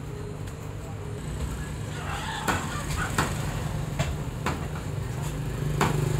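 A butcher's cleaver chopping on a chopping block: about five sharp, irregularly spaced chops in the second half, over a steady low background hum and faint voices.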